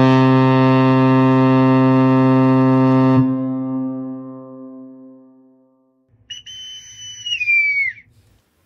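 A ship's horn sounds one long, deep blast for about three seconds and then fades away. A few seconds later a high, shrill whistle holds one note and then slides down in pitch, over a low rumble.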